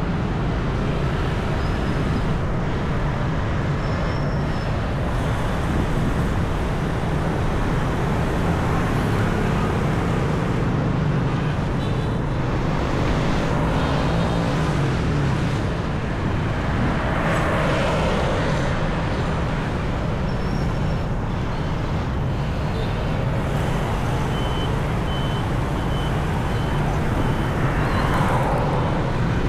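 Steady city road traffic: a continuous rumble of passing vehicles, with a rising engine note about halfway through.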